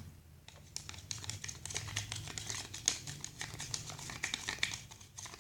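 A stirrer scraping and clicking against a container while white glue and water are mixed together: many small, irregular clicks and scrapes.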